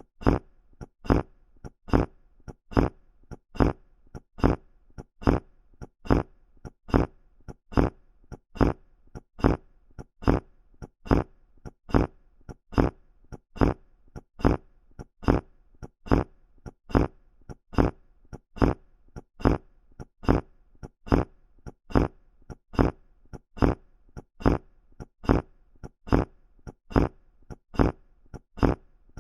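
Sloppy fart sound effect: a short, wet, sputtering fart repeated at an even pace of about one a second.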